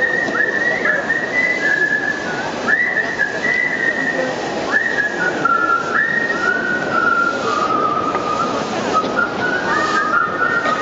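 A whistled tune, held notes joined by quick upward slides, over steady background noise.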